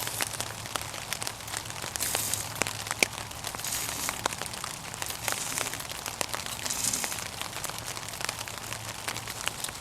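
Light rustling and crinkling with scattered small clicks, with brief hissy swells about two and seven seconds in.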